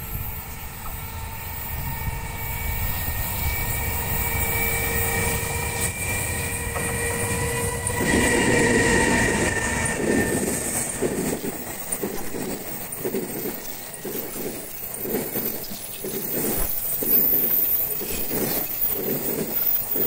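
A JR Freight EH500 electric locomotive hauling a container freight train approaches with a steady whine. It passes loudly about eight seconds in, and the container wagons follow with a rhythmic clickety-clack of wheels over the rail joints.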